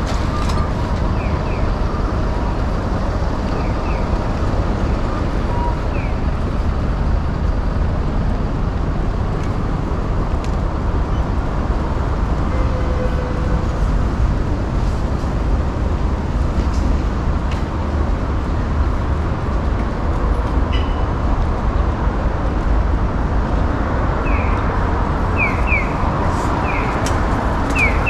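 Street ambience of road traffic: a steady rumble of passing vehicles, with short high chirps in small groups now and then, most of them near the end.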